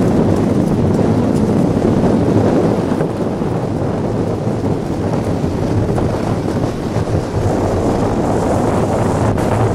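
Loud wind buffeting the microphone of a fast-moving iceboat, mixed with the rumble of its steel runners sliding over the ice.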